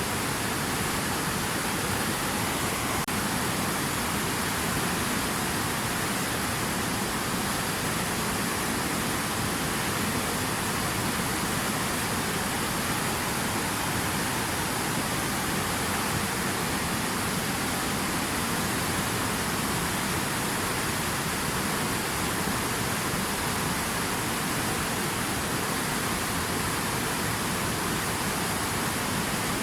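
Steady rushing water: a dense, even hiss with no separate splashes, drops or changes.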